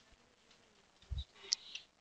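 Mostly quiet room tone with a soft low thump about a second in, then a small sharp tick and a brief soft hiss.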